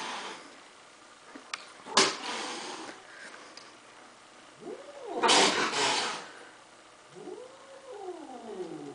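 Tortoiseshell cat giving threat calls at a dog: a sharp spit about two seconds in, then a yowl that rises and falls and runs into a loud hiss lasting about a second, and near the end another drawn-out yowl sliding down in pitch.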